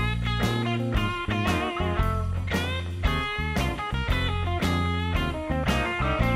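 Background music: guitar-led tune of sharply plucked notes about twice a second, some wavering in pitch, over a steady low bass.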